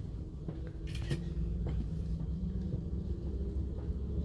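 Passenger train heard from inside the carriage while moving: a steady low rumble with a faint hum at a couple of steady pitches and a few light clicks.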